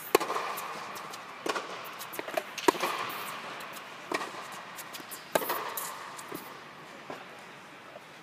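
Tennis ball struck by rackets in a rally, about five hits a little over a second apart alternating between the two ends, with lighter ball bounces between them. Each hit echoes in the big hall of an indoor tennis dome, and the hits stop a little past halfway.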